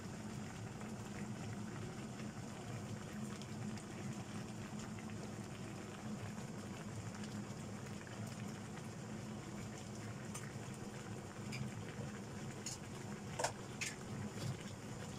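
Chicken pieces sizzling and bubbling in their juices in a frying pan, a steady crackle with a few sharper pops near the end.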